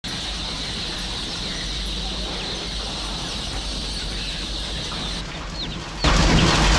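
Chickens clucking over a steady background hiss, with a few short high chirps; about six seconds in, a louder even rushing noise cuts in suddenly.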